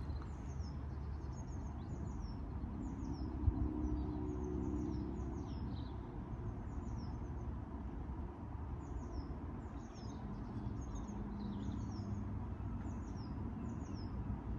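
Small birds chirping in short, high, falling notes, repeated through a steady low outdoor rumble. A faint hum comes and goes twice, and a single knock sounds about three and a half seconds in.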